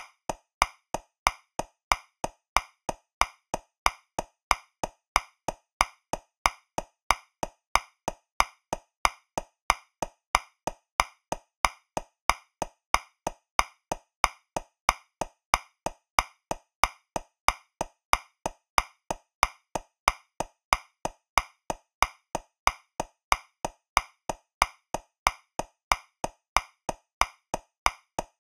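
Metronome clicking at 185 beats per minute, about three evenly spaced clicks a second. It counts in 2/4, with the first click of each pair accented.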